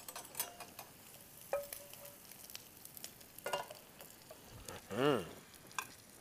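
Light clicks and taps of a metal spatula against a non-stick frying pan and a china plate as fried eggs are lifted out and plated, one tap ringing briefly, over a faint sizzle from the hot pan. A short hum of a voice comes near the end.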